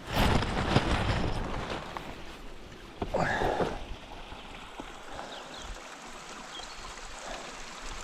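Running mountain-stream water, a steady rushing, louder during the first couple of seconds, with a short louder splash or handling noise about three seconds in.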